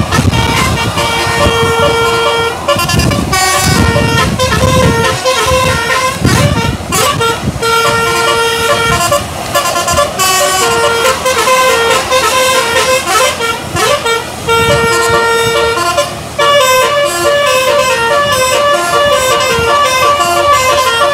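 A bus's 'telolet basuri' musical air horn playing a quick tune of short changing notes, with a few longer held notes.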